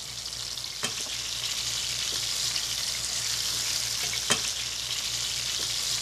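Slices of marinated firm tofu sizzling steadily as they pan-fry in shallow oil, with two sharp clicks, about a second in and again just after four seconds.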